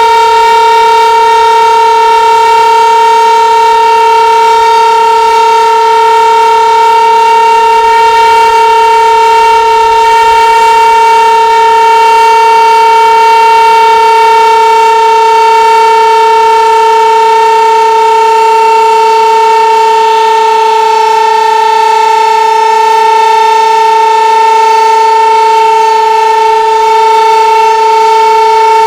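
Sentry 15V2T-B DC-powered dual-tone outdoor warning siren sounding a steady alert at full speed, its loud tones holding one pitch throughout.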